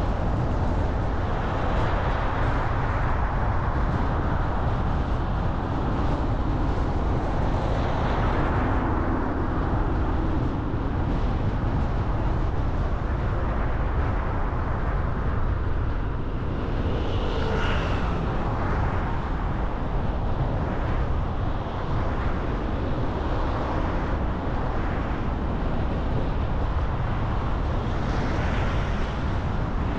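Car driving: a steady rush of road and engine noise, swelling briefly a few times.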